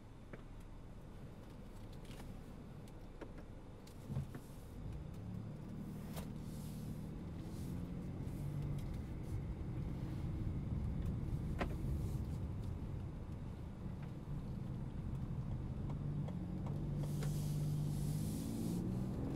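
Lincoln Nautilus SUV heard from inside the cabin as it pulls away and gathers speed: a low engine and road hum that grows steadily louder, with a single thump about four seconds in.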